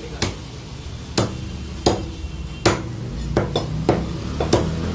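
A cleaver chopping through chicken meat and bone on a wooden log chopping block: a run of sharp chops, about one a second at first and coming faster near the end.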